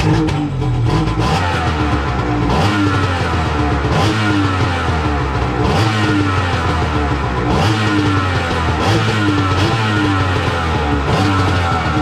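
Two-stroke Kawasaki 1100 STX jet ski engine running and being revved again and again, smoking as it runs. Music plays over it with a steady beat.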